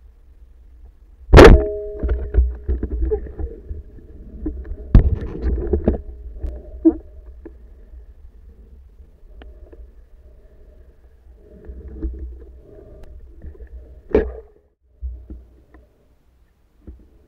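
Underwater sound through a diving camera's housing: a low steady rumble with sharp knocks and clatter. The loudest knock comes about a second and a half in, with a short ringing after it; others come around five and fourteen seconds.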